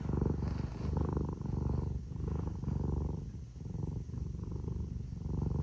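Cat purring close up, a steady low rumble that swells and eases about every three-quarters of a second.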